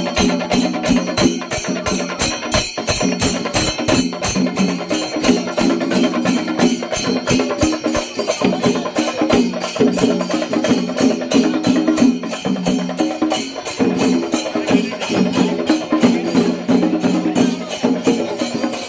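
Festival music: fast, dense percussion with a melody playing in repeated phrases over it.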